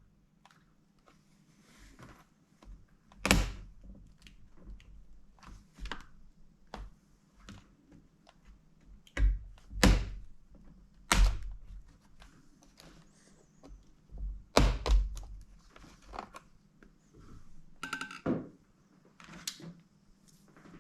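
Scattered clicks and knocks of a plastic laptop case being handled and opened up, with several loud thunks and a brief rattle near the end.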